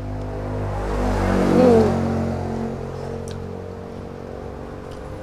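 A motor vehicle passing by: its engine hum swells to a peak about a second and a half in, then fades away. A single sharp click comes about three seconds in.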